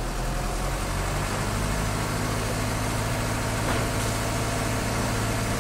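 Crane truck's engine idling steadily, its note shifting slightly about a second and a half in. One light knock near the middle.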